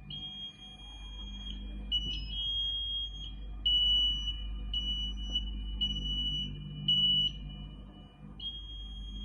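Sewing machine running in short bursts with a high-pitched whine, each run lasting about half a second to a second and a half and stepping slightly in pitch from one run to the next, over a low steady hum.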